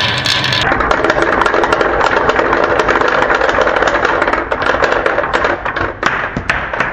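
Marbles rolling and clattering down a wooden HABA marble run: a steady rumble full of small clicks. Past the middle it thins to sparser clacks and fades out near the end.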